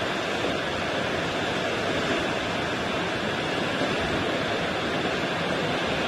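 Ocean surf: a steady, even rush of waves washing on the shore.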